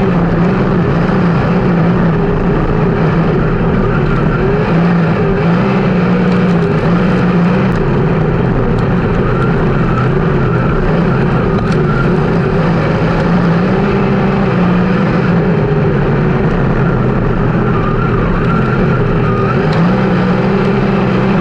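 A 360 sprint car's V8 engine running at racing speed, loud and steady, its pitch rising and falling every few seconds as it comes off and on the throttle around the track.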